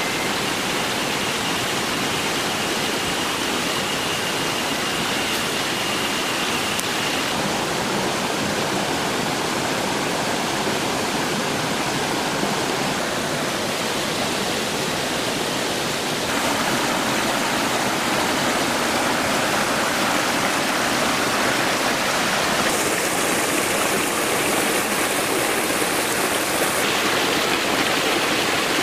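Mountain stream rushing over rocks: a steady rush of water that grows a little louder a bit past halfway.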